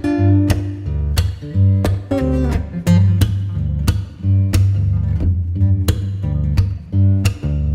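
Background music: plucked guitar over a bass line and a steady beat.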